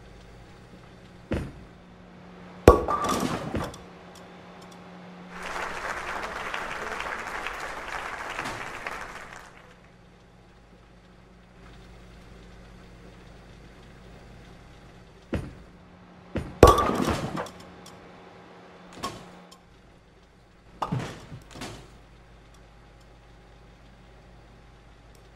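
Several sharp knocks in two clusters, the loudest two with a short ringing tone. In between comes a steady hiss lasting about four seconds.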